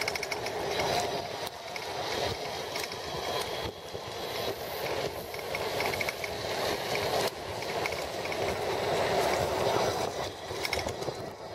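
Wind rushing over a handlebar-mounted camera's microphone and tyre noise while riding an electric bicycle along a paved road. Scattered clicks and rattles from bumps in the surface.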